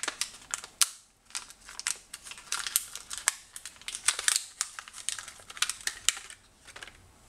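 Plastic packets of distributor contact-breaker points being handled on a tray: crinkling, with irregular sharp clicks of small parts and packaging.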